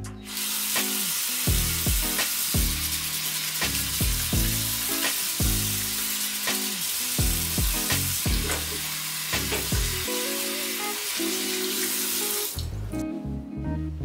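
Bathroom mixer tap running into a ceramic washbasin, the stream splashing over hands being washed under it. It turns on right at the start and is shut off suddenly about twelve and a half seconds in. Background music with a steady beat plays underneath.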